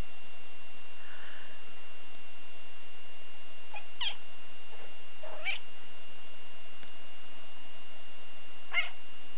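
Kitten mewing three times, short high mews that sweep in pitch: about four seconds in, about a second and a half later, and again near the end.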